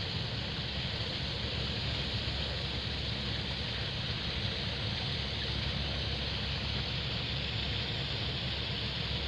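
Steady outdoor background noise: a low rumble with an even hiss over it, and no distinct events.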